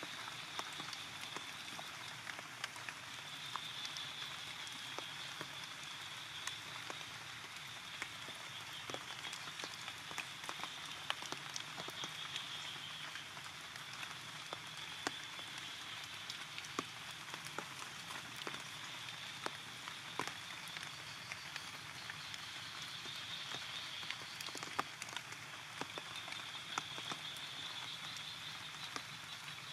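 Steady rain with many drops ticking on the surfaces around, and a high-pitched drone that swells and fades throughout.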